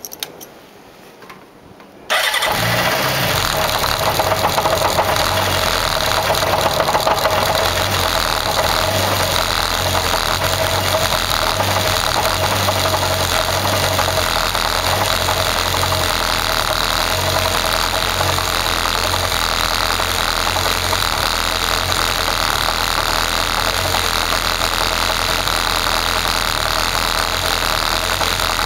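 A Kawasaki Zephyr 550's air-cooled inline-four engine starts about two seconds in and then idles steadily.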